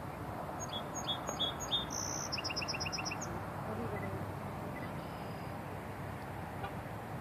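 A small bird chirping: four short high notes about a second in, then a quick run of about six notes that ends around three seconds in. Steady outdoor background noise lies under it.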